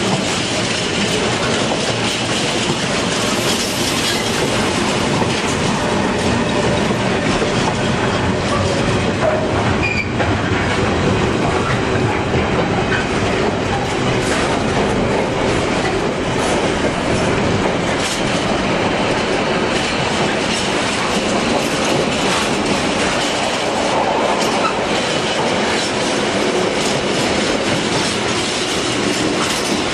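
Container freight train's flat wagons rolling past at steady speed, their wheels clattering along the track in a continuous, even noise.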